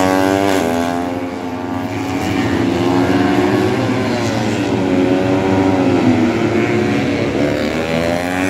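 Race motorcycle engine running hard around the circuit, its pitch climbing and dropping sharply at a gear change about half a second in. It eases off in the middle and climbs again in the last seconds.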